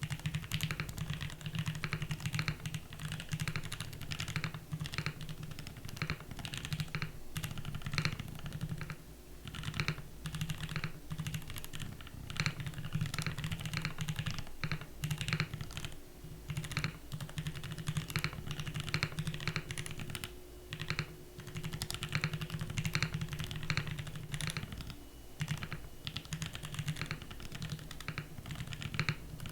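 Steady, fast typing on a mechanical keyboard: lubed Gateron Black Ink v2 linear switches under PBT keycaps on an aluminium-plate, top-mount board, with brief pauses now and then.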